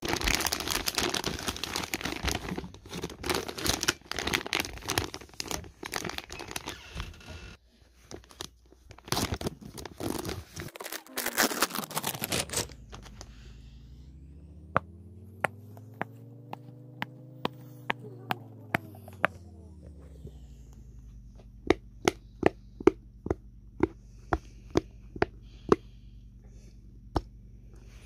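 Plastic and card packaging being torn open and crinkled for about the first half, then sharp single clicks as the silicone bubbles of a flower-shaped simple dimple fidget toy are pushed in, about two a second near the end. A low hum runs underneath the clicks.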